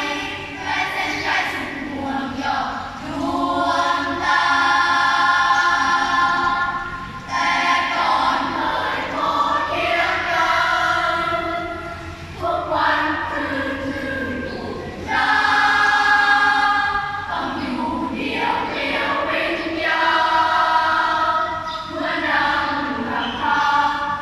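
Primary-school children's choir singing in two-part harmony, holding long notes in phrases a few seconds long with short breaths between them.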